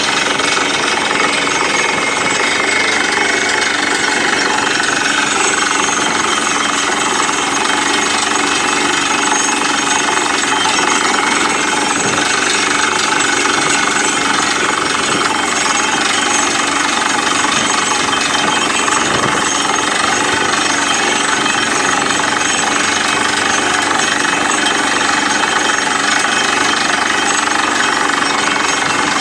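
Borewell drilling rig boring a well with an air-driven hammer bit: a loud, steady, rapid rattle of hammering over the rig's running engine and compressor, with dust and rock cuttings blown out of the hole.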